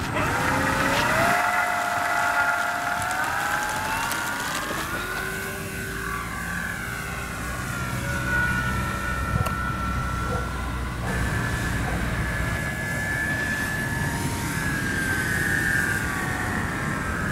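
Electric motor and propeller of an FMS P-47 1.4 m foam RC model whining in flight, the pitch gliding up and down with throttle and passes. The whine changes abruptly about eleven seconds in.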